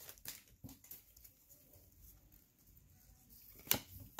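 Baseball trading cards being handled and set down: a few faint, brief taps of card stock, with a sharper tap about three and a half seconds in.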